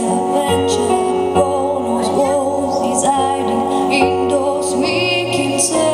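A woman singing live into a microphone, over instrumental backing that holds sustained chords and a low bass note.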